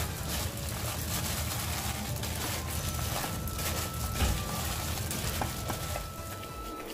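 Sliced cucumber and onion coated in chili flakes being tossed by a plastic-gloved hand in a stainless steel bowl, the vegetables shifting and rubbing against each other and the bowl with each repeated stroke.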